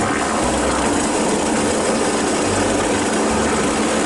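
Police MBB Bo 105 helicopter running steadily as it lifts off, a dense turbine and rotor noise with a steady hum under it.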